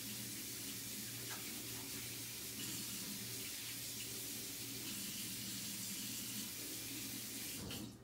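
Tap water running steadily into a sink while hands are washed, with a low hum beneath; it stops abruptly near the end.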